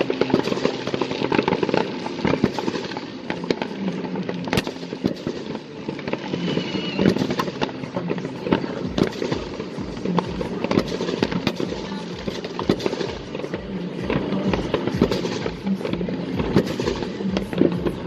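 Fireworks display going off in a dense, continuous barrage of bangs and crackles. In the second half, deep thuds come evenly about twice a second.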